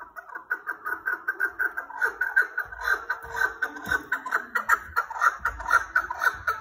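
Caged chukar partridge calling: a fast, even run of repeated short chuck notes, about five or six a second, growing louder over the first couple of seconds.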